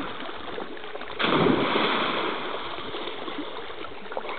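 A sudden big splash in lake water about a second in, tailing off over the next second.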